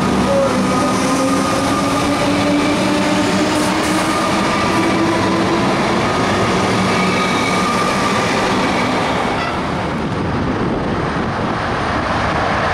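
Comeng electric suburban train accelerating along the platform: traction motor whine rising slowly in pitch over the rumble of wheels on rail. About nine and a half seconds in the whine fades, leaving a rushing noise.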